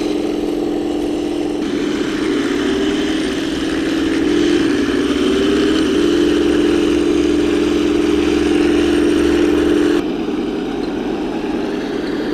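Henglong RC M41 Walker Bulldog tank running: the simulated tank-engine sound from its built-in sound system together with its electric drive, a steady hum whose pitch wavers for a few seconds as it is steered, then drops abruptly about ten seconds in.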